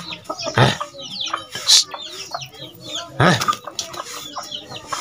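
Chickens clucking and calling, with many short high calls throughout and two louder calls, one about half a second in and one a little after three seconds.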